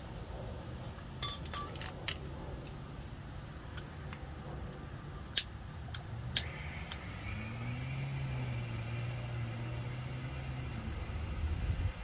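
Small metal clicks and clinks of hand tools working a wire terminal, with two sharp clicks about five and six seconds in, over a steady low rumble.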